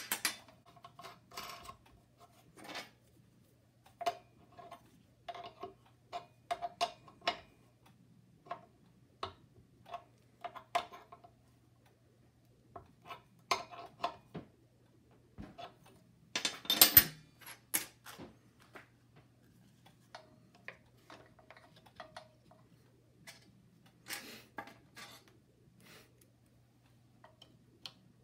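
Hand tools and small metal parts clicking and clinking irregularly against a small belt-drive air compressor while it is reassembled after a belt change, some knocks ringing briefly. The loudest clatter comes about 17 seconds in.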